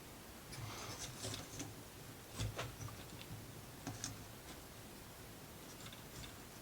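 Faint, scattered clicks and taps of wooden model pieces being handled and worked loose by hand, a few in the first four seconds, then quieter.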